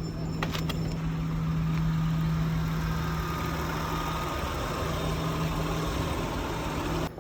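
A car engine idling with a steady hum, and a few light clicks about half a second in.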